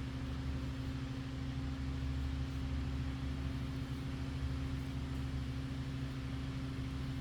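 A steady, low machine hum that holds an even drone with no change in pitch or level.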